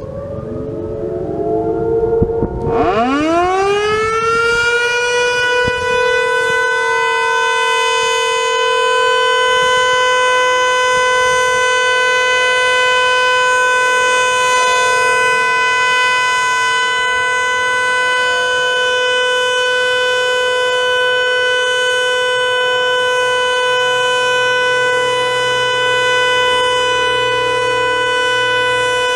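Federal Signal Model 2 outdoor warning siren winding up about two and a half seconds in, then holding a steady one-pitch alert tone. Before it starts, fainter distant sirens are heard gliding.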